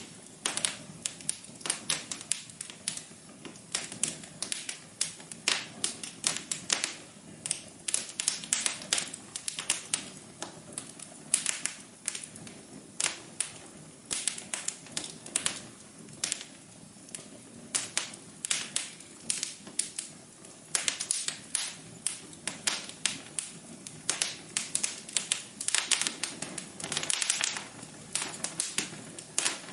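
Wood fire crackling: irregular sharp pops and snaps, several a second, over a low steady hiss of flames.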